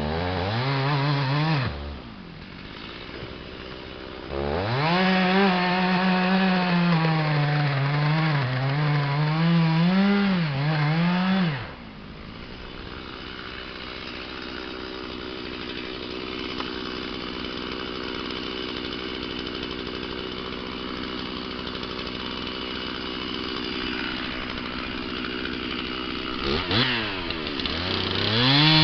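Stihl gas chainsaw cutting a large ash log. It revs briefly at the start, then runs at high revs for about seven seconds with its pitch dipping and rising as the chain bites. It drops back to a quieter steady idle for over ten seconds, then revs up again near the end.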